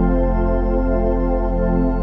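Background music: slow, calm meditation-style ambient music of sustained synthesizer chords over a low steady drone.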